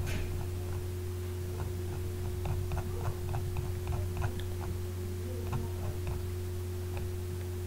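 Steady low electrical hum with a string of faint, light clicks, the sound of a computer mouse scrolling through document pages.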